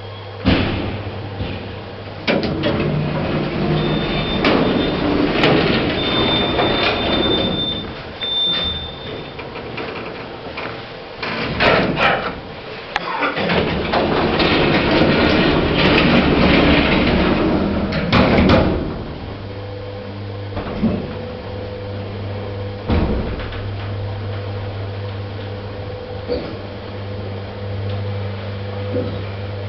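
Wadsworth Becker passenger lift in use: doors sliding and clunking and the car running. A high beeping tone sounds a few times about four seconds in. The clatter settles after about nineteen seconds to a steady low hum with the odd knock.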